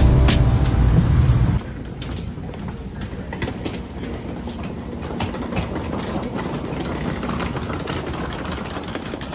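Background music stops abruptly about a second and a half in. Then comes the steady rumble of a railway station with trains, and scattered footsteps on a tiled floor.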